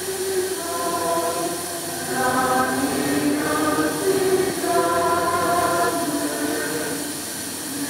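A choir singing slow, sustained chords, with several voices holding long notes together.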